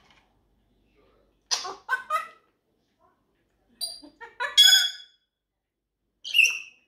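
African grey parrot calling in three short bursts of squawks and chatter, about a second and a half in, around the middle, and near the end.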